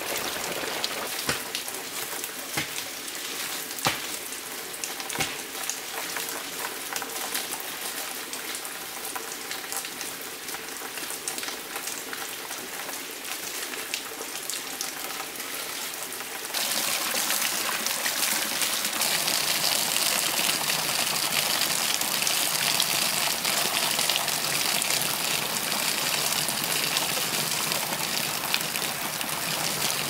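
A few sharp knocks and rustling among bamboo stems and leaves over a steady watery hiss; about halfway through, a louder, steady splashing of water pouring from a pipe onto rocks takes over.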